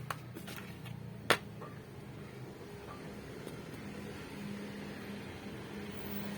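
Light clicks of metal parts being handled during disassembly of a pneumatic nail gun, the sharpest about a second in, over a steady low hum.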